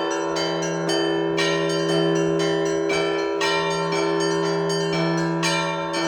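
Russian Orthodox church bells being rung by hand in a steady rhythmic peal. Smaller bells strike at about two strokes a second over the continuous hum of larger bells ringing on.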